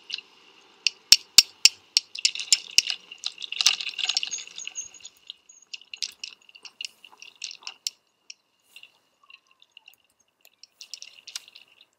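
Sharp, irregular clicks and ticks from a bicycle being ridden along a city street, over a thin steady high tone. They come thick for the first five seconds or so, then thin out and nearly stop about eight seconds in.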